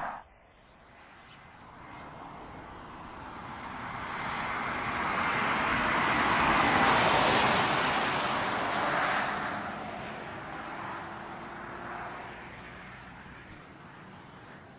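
A 2009 BMW 750Li driving past at speed: tyre and engine noise swells to its loudest about seven seconds in, then fades away.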